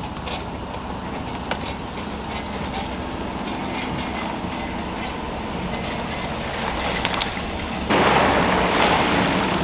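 Pickup truck engine running slowly as it reverses a boat trailer down a concrete ramp, a steady low hum with faint ticks. About eight seconds in, a much louder rushing noise sets in.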